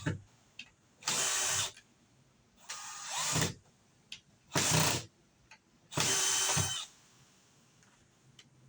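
A small handheld power tool run in four short bursts of under a second each, with pauses between; the second burst builds up before it stops.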